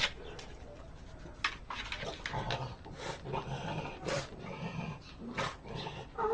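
A dog making a string of short, low-pitched vocal noises, with a few sharp knocks among them.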